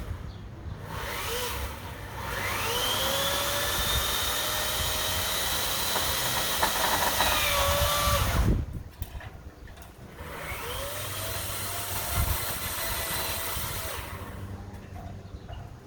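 Power saw cutting tree branches: the motor winds up with a rising whine, runs steadily for about six seconds and cuts off. After a short pause it winds up again for a second, shorter run.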